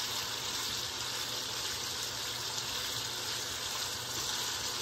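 Italian sausage sizzling steadily as it fries in its own fat in a non-stick skillet, stirred with a spatula.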